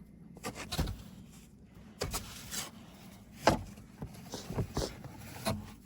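Scattered soft knocks and crunching rustles, a few a second, from someone moving about and handling things in deep fresh snow. The loudest comes about three and a half seconds in.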